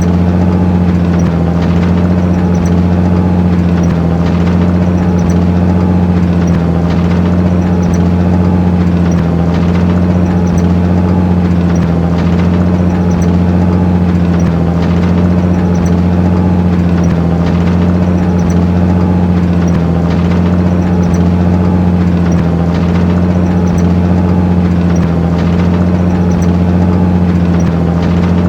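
Truck engine idling steadily: an even, unchanging low hum.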